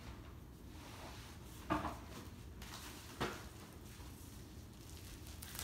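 Faint handling noises as a bubble-wrapped item is pulled out of a plastic tote bag, with two short bumps, the louder one a little under two seconds in and the other about three seconds in.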